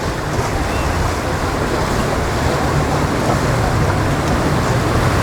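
Waves and wind noise over the low hum of boat engines in a rough inlet, the hum growing slightly louder.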